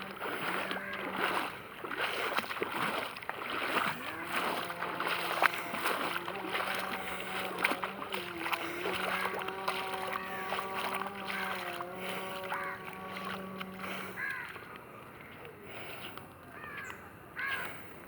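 Feet wading through floodwater, with irregular splashing and sloshing. A steady droning hum runs under it until about two-thirds of the way through, and a few short calls come near the end.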